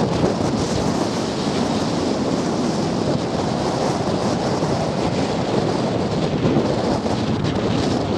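Wind buffeting the microphone: a steady, loud rushing noise with no let-up.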